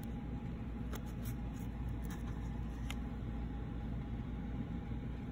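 Steady low room hum with a few faint clicks as a cardboard board book is handled and its page turned.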